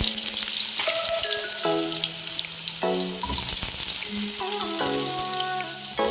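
Food sizzling and frying in hot oil in a pan, a steady crackling hiss, with a background music tune playing over it.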